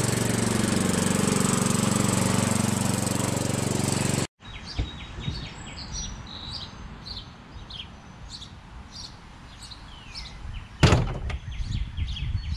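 Riding lawn tractor's engine running steadily, cutting off abruptly about four seconds in. Then birds chirping, with a single loud thump near the end.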